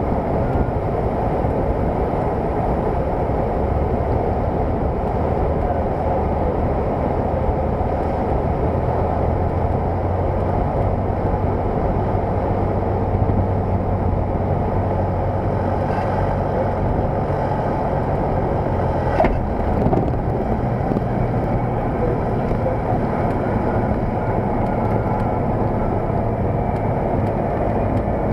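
Cessna 172's piston engine and propeller running steadily, throttled back during the landing flare, with wind noise, heard from inside the cabin. A brief click about two-thirds of the way through.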